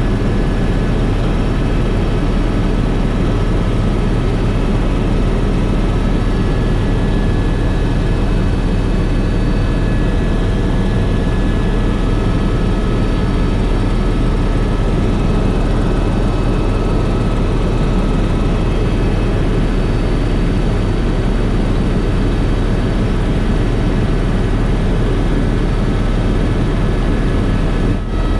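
Helicopter cabin noise in flight: the engine and rotor run steadily, with a constant deep rumble and a few faint steady tones above it. There is a brief drop in level near the end.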